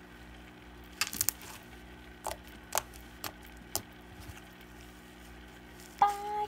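Green cloud slime made with instant snow, squeezed and pulled apart by hand, giving a handful of sharp little clicks and pops. Near the end a young girl's voice starts singing.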